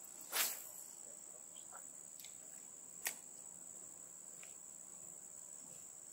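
Insects droning steadily at a high pitch, with a short sharp swish about half a second in and a faint click about three seconds in.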